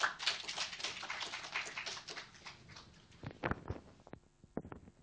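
Audience applause: a dense patter of hand claps that thins out and dies away after about two and a half seconds. Then a few separate knocks and thumps follow, the loudest about three and a half seconds in.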